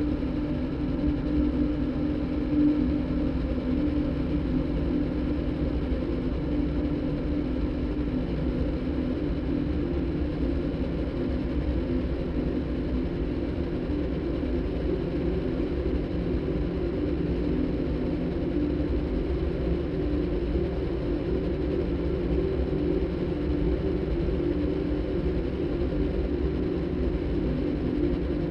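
Electronic soundtrack made by cross-synthesizing a motorbike's engine sound with a recording of a đàn bầu (Vietnamese monochord), heard as a steady, engine-like drone.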